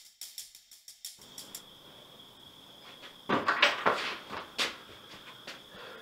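Rapid ticking for about the first second, then a steady high cricket trill. A short clatter comes about three and a half seconds in, and a single knock a second later.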